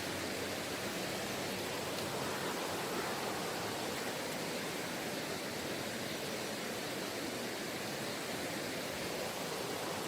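Mountain stream water rushing steadily over rocks, an even, unbroken noise.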